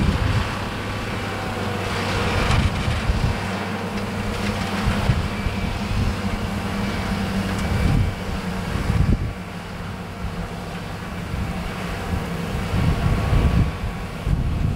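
Fendt 930 Vario tractor's six-cylinder diesel engine running steadily under ploughing load, pulling a reversible plough, with wind gusting on the microphone.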